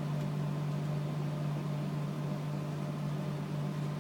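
Steady low electrical hum with a faint hiss, constant throughout with no change in pitch or level.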